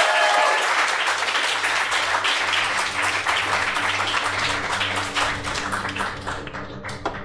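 Audience applause: many hands clapping, dense at first, then thinning and dying away near the end.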